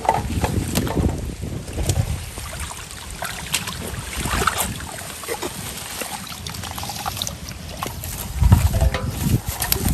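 Water splashing with scattered knocks and clatters from handling, over a low rumble of wind on the microphone, louder near the end.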